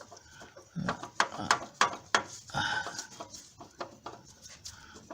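Irregular clicks and knocks with a few brief squeaks from the alternator pulley being handled. The pulley is loose and slips on its shaft, worn enough to wander up and down it.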